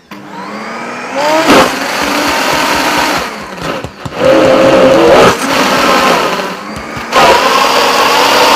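Optimum G2.1 high-speed blender running its sauces preset on a thick sauce. The motor starts up from a near stop at the beginning, then ramps up and down in speed several times with brief dips between surges, as the preset programme does.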